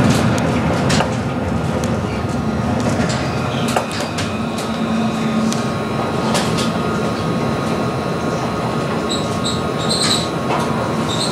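Montpellier line 1 tram running along its track: steady rolling noise with a low hum and a faint whine, scattered clicks, and a few brief high wheel squeals in the last couple of seconds.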